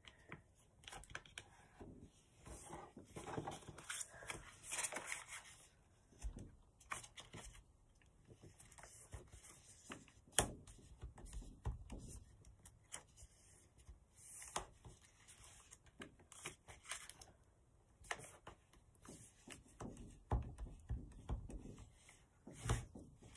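A sheet of paper being folded and creased by hand: quiet, irregular rustling and sliding, with sharp taps as the folds are pressed flat, the sharpest about ten seconds in.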